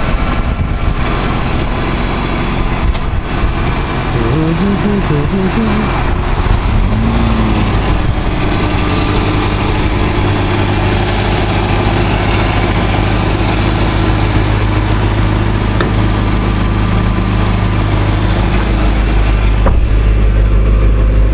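1981 Toyota Hilux pickup's engine idling steadily, running a little louder near the end.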